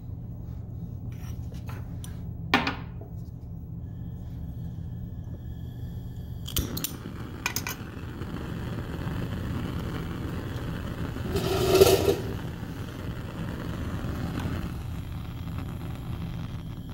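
Bunsen burner lit about seven seconds in after a few sharp clicks, then its gas flame running with a steady rushing hiss that swells briefly about twelve seconds in and eases off near the end.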